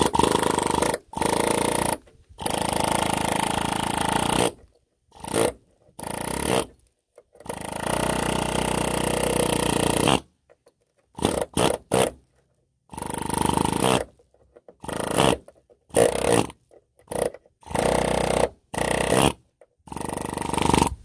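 Pneumatic air chisel hammering through the outer layer of a rusted sheet-metal car rocker panel. It runs in stop-start bursts as the trigger is feathered: two longer runs of about two and a half seconds early on, then shorter bursts of about a second with brief gaps.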